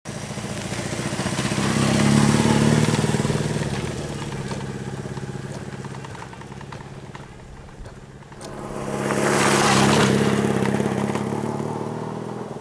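BMW R1150GS boxer twin with a Staintune aftermarket exhaust, ridden past on a gravel track. The engine note is loudest about two seconds in and fades; it swells again around nine to ten seconds with a strong hiss, then dies away into the distance.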